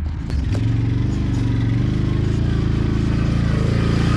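ATV engine running steadily as the quad drives along, coming in about half a second in.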